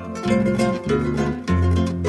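Background instrumental music: quick plucked notes over low bass notes.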